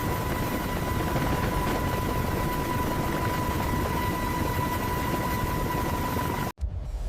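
CH-53K King Stallion heavy-lift helicopter running, a steady rushing noise with a high, constant whine. It cuts off abruptly near the end and gives way to a different low rumble.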